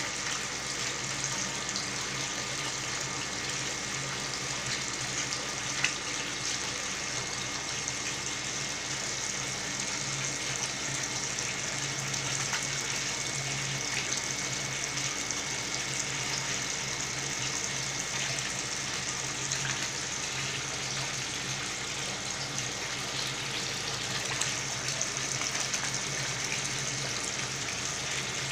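Water pouring steadily from a filter return hose into a tank, splashing and bubbling at the surface, over a steady low hum from the filter pump. A single sharp tick about six seconds in.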